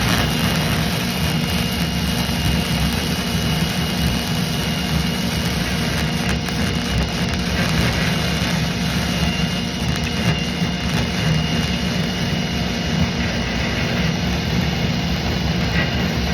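MIG welding arc crackling and buzzing steadily as a weld pass is run on a pipe.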